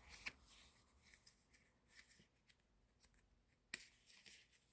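Faint paper handling: sticker sheets and packets lightly rustled and tapped, with a few soft clicks and one sharper click about three-quarters of the way through.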